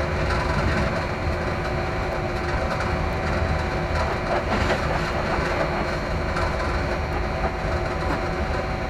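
Train running along the track: a steady rumble and rattle of wheels on rail, with a faint steady whine on top.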